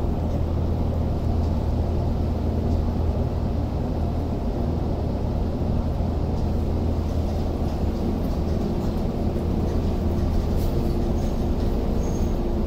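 Interior running noise of a Tokyo Metro 05 series subway car: a steady low rumble of wheels and traction equipment as the train rolls slowly into a station platform.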